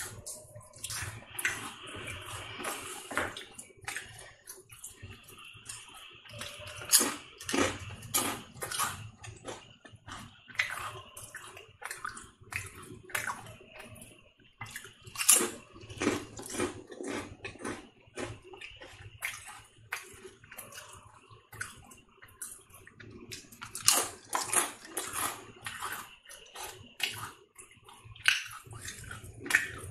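Ridged Bingo potato chips bitten and chewed close to the microphone: a run of sharp, irregular crunches with several especially loud bites spread through it.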